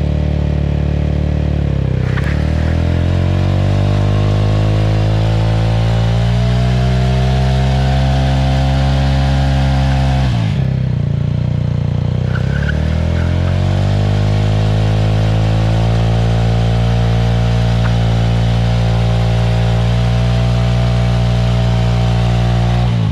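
Mahindra Mojo's 295 cc single-cylinder engine revved hard and held high in a stationary burnout, the rear tyre spinning on the asphalt. The revs climb and hold, drop sharply about ten seconds in, climb and hold again, then cut off at the very end.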